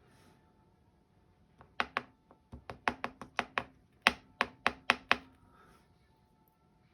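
A quick, uneven run of about fifteen sharp taps and knocks on the Dom IX dimple lock while its key pins are being worked out of the plug, with a short pause in the middle of the run.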